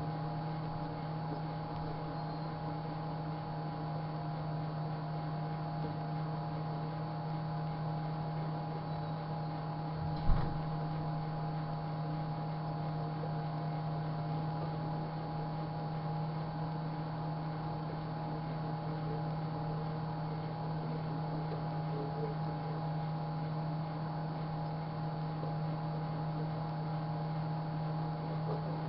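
Microwave oven running with a steady hum, and a single short thump about ten seconds in.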